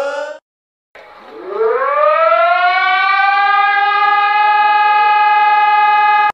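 A civil defense warning siren winds up from a low pitch to a steady high tone over about two seconds, holds that tone, then cuts off abruptly. Just before it, another alert tone stops, leaving a short gap.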